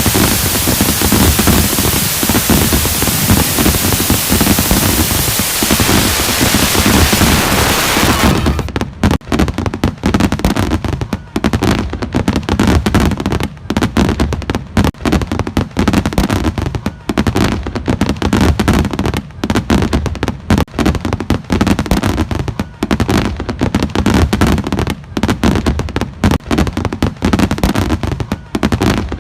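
Fireworks display: a dense, steady hiss over low rumbling for about the first eight seconds, then a rapid, continuous crackle of pops and bangs.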